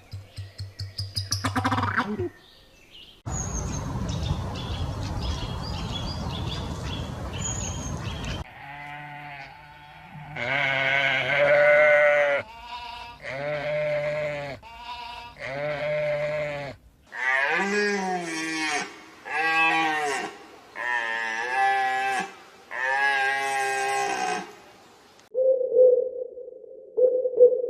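Sheep bleating over and over, about ten wavering calls each a second or so long, after a stretch of noisy rustling with high bird chirps.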